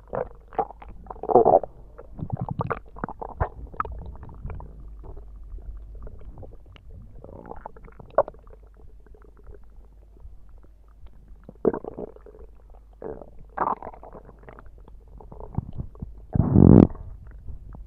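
Stomach growling: a run of short, irregular rumbles with quieter stretches between them, and the longest and loudest growl near the end.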